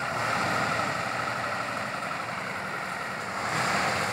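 Diesel engine of a truck-mounted borewell drilling rig running steadily, with a fast, even pulse in its sound, swelling slightly about three and a half seconds in.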